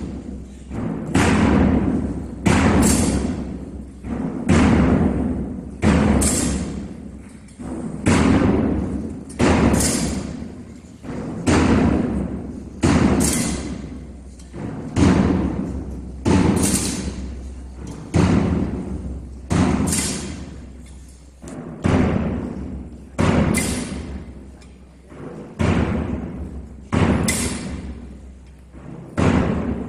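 Slow processional beat: single heavy strikes about every second and three-quarters, each echoing and dying away in the church's reverberation.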